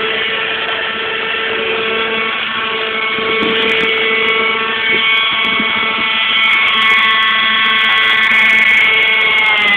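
Radio-controlled model helicopter running: a loud, steady high whine from its motor and spinning rotor blades, with the pitch shifting slightly.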